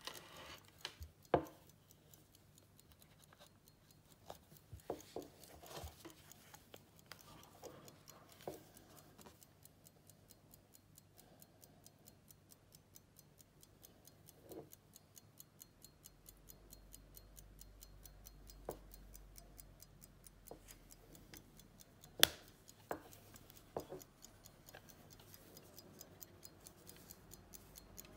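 Antique J.W. Benson 'Ludgate' silver pocket watch ticking, a fast, even, faint ticking of several beats a second. Now and then there is a sharper click or knock as the watch's hinged covers are handled and opened.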